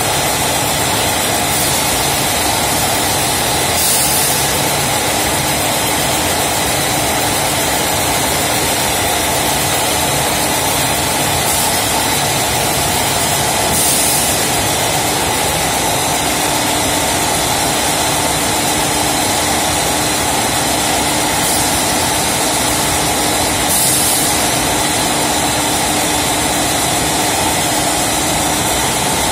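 Vertical form-fill-seal packaging machine running steadily while it fills and seals 2.5 kg bags of condensed milk: a constant loud mechanical hum with a short burst of hiss about every ten seconds.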